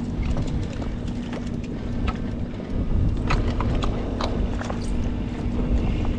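Scattered light clicks and knocks, most frequent a few seconds in, over a steady low rumble of wind on the microphone.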